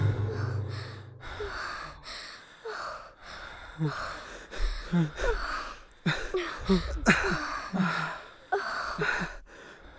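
Several people panting and gasping for breath in short, separate puffs, winded and bent over. A low music drone fades out about a second in.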